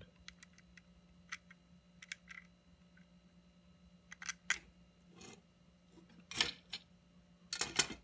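Small scattered clicks and taps of hands handling a Roomba 650 wheel module's plastic gear case and its small screws, with a few louder clicks in the second half.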